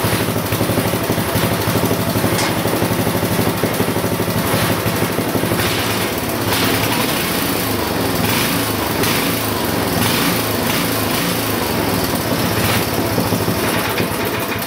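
Briggs & Stratton 5 hp horizontal-shaft single-cylinder engine on a rear-tine tiller, running steadily.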